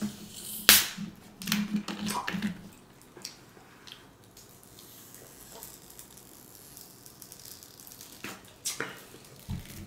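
Close-miked chewing of a crunchy hard-shell taco, with sharp crunches and mouth clicks in the first couple of seconds. This is followed by a quieter stretch of sips from a plastic water bottle, and a few short sharp sounds near the end.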